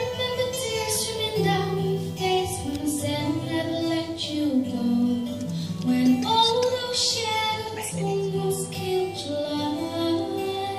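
A young woman singing a slow, sustained melody solo into a handheld microphone, amplified over a soft instrumental accompaniment with held low notes.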